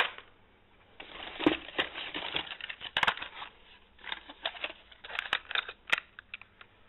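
Plastic blister packs on card backings, holding Hot Wheels die-cast cars, crinkling and clacking as they are handled and pulled out of a cardboard box, in irregular bursts with a sharp click right at the start.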